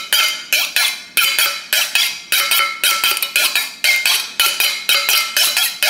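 Chef's knife blade drawn rapidly back and forth along a steel honing rod, about three to four strokes a second, each a metallic scrape with a short ring: the edge being honed.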